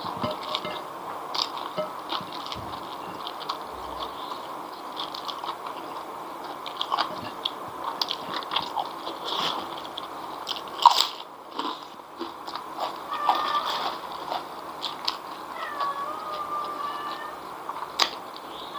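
Close-up eating sounds: wet chewing of fried noodles with crisp crunches of a puffed cracker (kerupuk) being bitten. The sharpest crunches come about eleven seconds in and again near the end.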